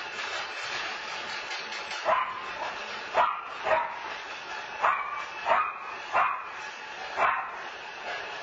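Small dog barking: about seven sharp yapping barks starting about two seconds in, over a steady background hiss.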